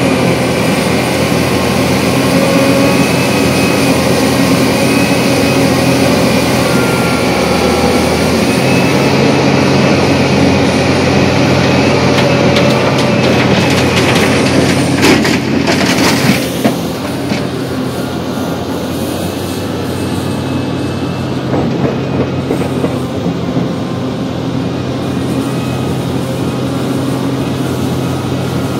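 Diesel engine of a Liebherr R 984C hydraulic mining excavator running steadily under load, a loud drone heard from the operator's cab. A burst of clattering knocks comes about halfway through.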